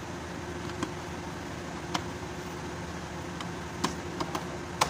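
Plastic fuse box cover in an engine bay being fitted, with several sharp clicks and snaps as it is handled and pressed into place, the loudest near the end, over a steady background hum.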